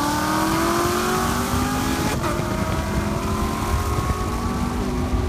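Supercharged V8 of a C7 Corvette Z06 at wide-open throttle in a roll race from 40 mph, heard from inside the car, its pitch climbing steadily as it pulls hard.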